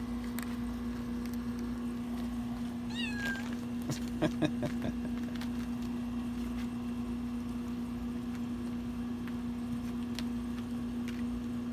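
Bengal kitten giving a short high chirp about three seconds in, then a couple of brief meows, over a steady low electrical hum and a few light taps.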